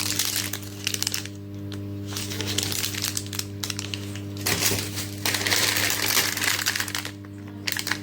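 Crinkling and rustling of a packet being handled, with dense crackles that are strongest for a couple of seconds near the end, over a steady low hum.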